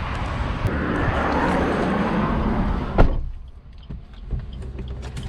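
Outdoor wind and road noise, then about three seconds in a car door shuts with one sharp slam and the outside noise drops away to the muffled quiet of the car's cabin, with a low steady hum left.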